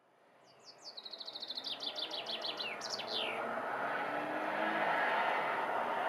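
A songbird sings a quick run of about a dozen repeated downslurred high notes, ending after about three seconds with a couple of lower sweeping notes. Under it, a steady town ambience with traffic noise fades in and grows louder.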